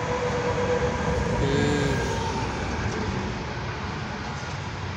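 Steady vehicle rumble and road noise heard from inside a car, with a faint steady whine over the first second or so.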